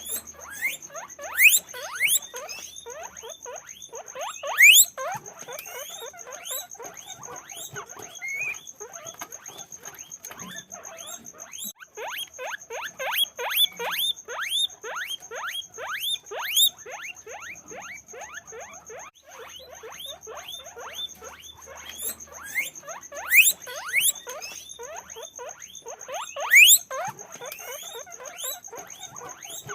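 Guinea pigs squeaking continuously in quick, overlapping rising squeaks, with a few loud, high wheeks standing out: twice near the start and twice near the end.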